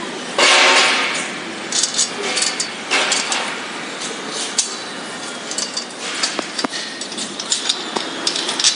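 Metal clinks and taps of a galvanized hinge clamp and its bolt being fitted against a steel chain-link fence post, handled by hand. A louder scraping burst comes about half a second in, and several sharper clinks come near the end.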